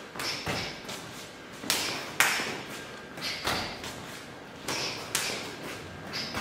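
Straight punches being parried by hand in a partner drill: about eight sharp slaps and thuds of hands meeting hands and forearms, irregularly spaced.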